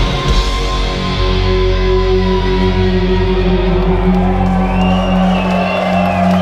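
Black metal band playing live through a PA: after the drums stop, a guitar and bass chord is held and rings out. The lowest bass note drops away near the end.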